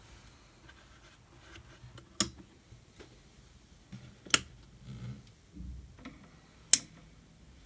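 Three sharp switch clicks a couple of seconds apart, with faint handling and rustling between them, as lights are switched back on.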